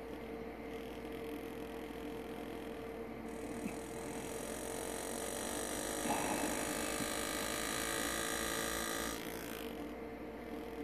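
Steady low electrical hum, joined about three seconds in by a cluster of high steady whining tones that cut off about nine seconds in.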